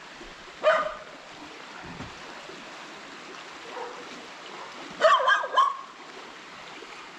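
Dog barking: one short bark about a second in, then a quick run of three or four louder barks about five seconds in, over the steady rush of a shallow stream.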